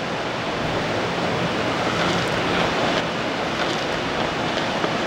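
Steady rushing noise with no clear pitch, like wind on a microphone, with a few faint ticks near the end.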